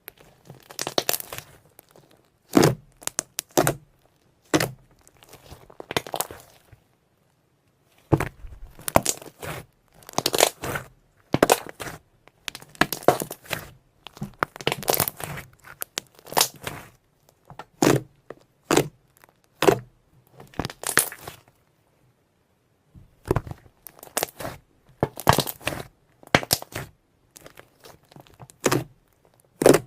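Slime being squished and stretched, giving irregular bursts of crackling and popping, with two short pauses.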